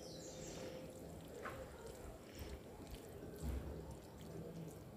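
Faint, soft squishing and light scraping of cooked fusilli pasta sliding out of a tipped metal saucepan into a foil baking tray, with a soft low bump about three and a half seconds in.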